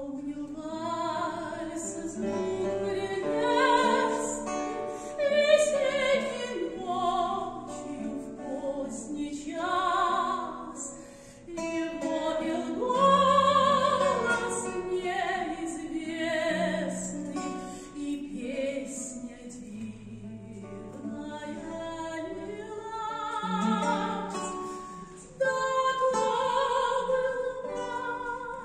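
A woman singing a Russian romance in waltz time in a trained, operatic voice with wide vibrato, accompanied by a classical guitar plucking low bass notes and chords.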